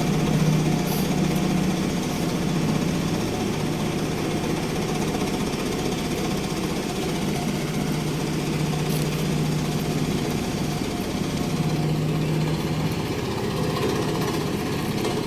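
An engine running steadily at a constant pitch, with no revving.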